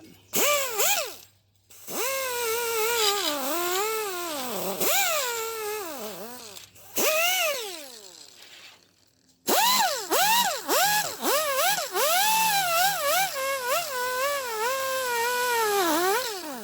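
Pet bird calling in long warbling runs, its pitch sliding quickly up and down, broken by a few short pauses.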